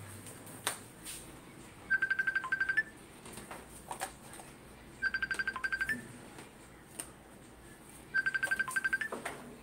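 Telephone ringing: three electronic trilling rings, each a rapid run of beeps under a second long, about three seconds apart. A few faint clicks of a phone box being handled come between the rings.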